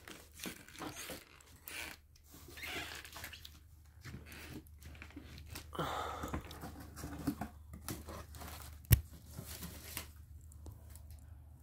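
Cardboard shipping box and packaging rustling and scraping as a boxed book set is slid out and handled, with a sharp knock about nine seconds in.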